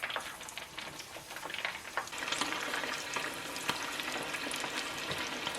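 Stuffed chicken drumsticks frying in a small pot of oil: hot oil sizzling and crackling steadily, growing stronger about two seconds in.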